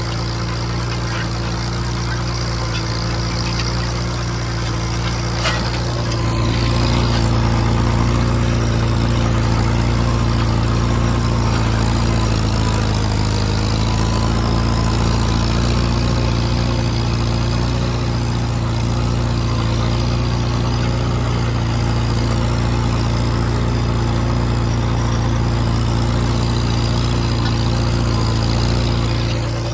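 Farmall H tractor's four-cylinder gasoline engine running steadily under load while pulling a disc harrow. It grows louder about six seconds in and drops back just before the end, with a single sharp tick just before the rise.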